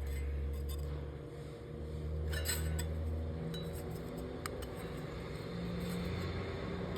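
Light metallic clinks and scrapes from metal pieces being handled, with a few sharp clicks, over a steady low hum.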